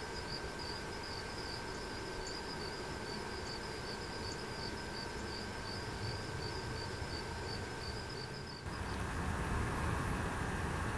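Insects chirping in a regular, rapid high-pitched rhythm over a steady outdoor hiss. About two-thirds of the way through, this cuts abruptly to a louder, lower, steady noise with no chirping.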